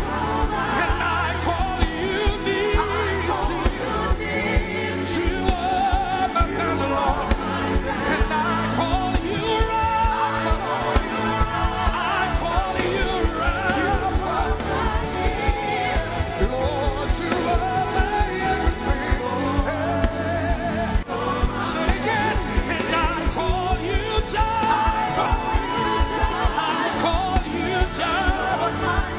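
Live gospel worship music: singing over a full band with a steady beat.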